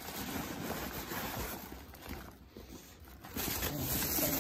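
Plastic wrapping rustling and crinkling as it is handled, in two spells with a quieter gap in the middle.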